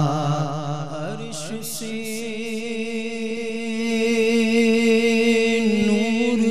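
Unaccompanied male voices singing a naat. The lead reciter draws out a long ornamented note with vibrato, over a steady humming drone from the backing chorus that settles in about two seconds in.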